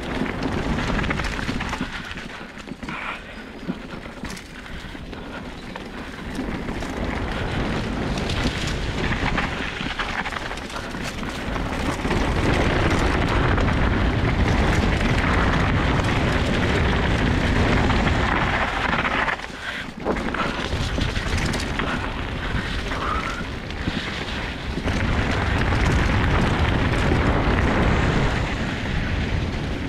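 Mountain bike rolling fast down a dirt forest singletrack, heard as wind rush buffeting a helmet-mounted GoPro's microphone over the tyre noise, with occasional sharp clicks and knocks. The rush grows louder about twelve seconds in, drops briefly around twenty seconds, and swells again near the end.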